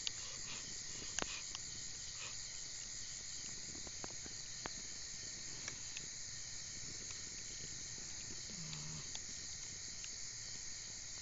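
Crickets chirping steadily in a high, evenly pulsing chorus, with a few faint sharp clicks.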